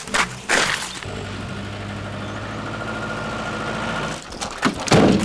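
A car engine running steadily for about three seconds, starting about a second in and cutting off suddenly, with crunching steps just before it and a few knocks near the end.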